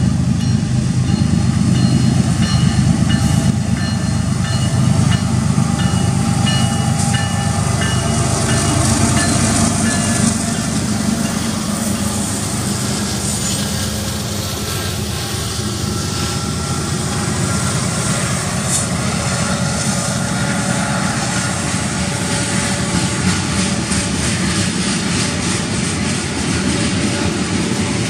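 A freight train passes close by: diesel-electric locomotives (a GE ES44AC, an EMD SD70M and a Norfolk Southern GE C44-9W) go by with a heavy low rumble through the first half. After that the freight cars roll past, their wheels clicking steadily over the rail joints.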